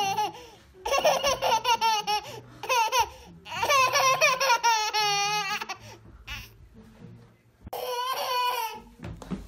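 A one-year-old girl laughing hard in repeated fits of high-pitched giggling, several bursts with short pauses between them and one long peal in the middle.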